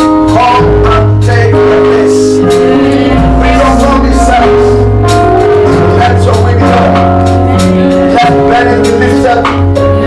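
Worship music in a steady rhythm: held keyboard chords over a bass line, with regular drum and cymbal hits.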